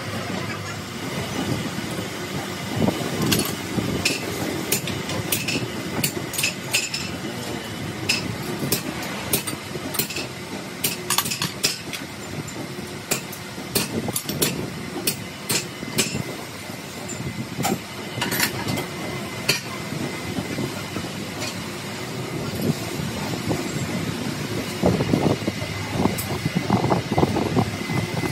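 Irregular metal clicks and clanks as a crankshaft is set into the chucks of a crankshaft grinder and the chuck jaws are adjusted and tightened, over a steady machinery hum. The knocking gets busier near the end.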